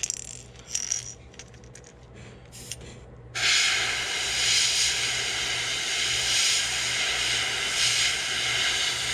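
A few faint clicks, then about three seconds in an airbrush starts spraying thinned paint: a steady hiss of compressed air that begins abruptly and holds even.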